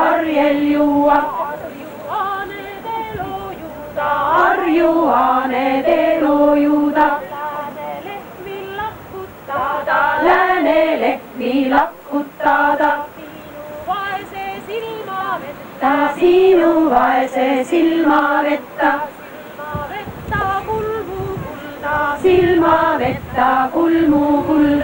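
A women's folk choir singing together, in sung phrases broken by short pauses.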